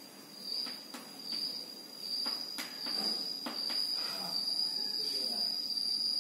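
Chalk tapping and scratching on a blackboard during writing, a series of short sharp ticks, over a steady high-pitched tone that runs throughout.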